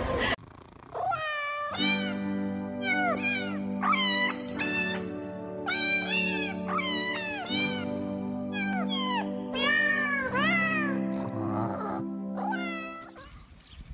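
A pug whining in many short, high cries that rise and fall, over background music of held notes.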